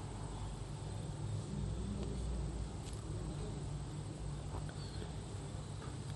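Steady low electrical hum and hiss of the recording microphone, with a few faint keyboard key clicks near the end.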